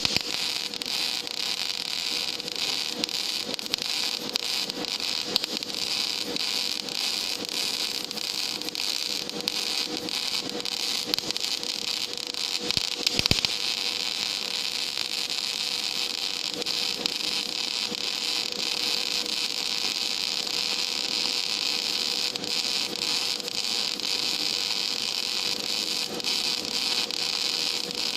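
Gas metal arc (MIG) welding arc running on a metal plate: a steady crackling hiss made of many fine crackles, with a faint steady hum beneath it.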